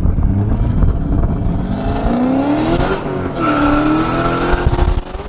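Turbocharged Ford Mustang GT's 4.6-litre three-valve V8 accelerating hard with its note rising. About three seconds in there is a quick upshift through the short-throw shifter: the pitch drops, then climbs again in the next gear. The engine lets off near the end.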